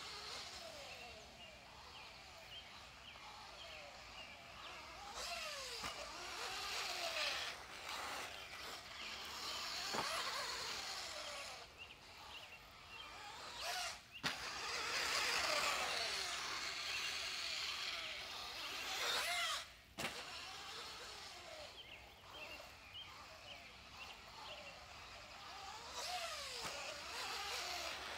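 Team Associated B5M electric RC buggy lapping a dirt track. Its electric motor whines, rising and falling in pitch over and over as the buggy accelerates and brakes.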